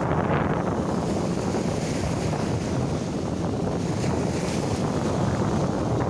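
Wind noise on the microphone over the steady wash of small sea waves breaking on a sandy beach.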